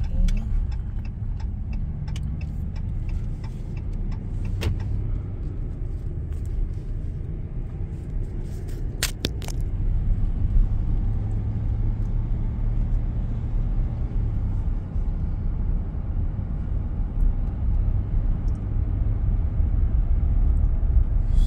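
Steady low rumble of a RAM pickup truck driving, heard from inside the cab, with a few brief clicks and knocks partway through. It gets a little louder about halfway.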